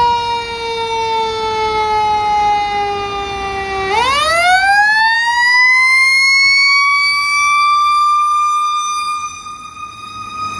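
Federal Q mechanical siren on a 2012 KME fire truck (Philadelphia Water Tower 57). It winds up with a rising wail, coasts slowly down in pitch for about four seconds, then winds up again to its top pitch and is held there, peaked.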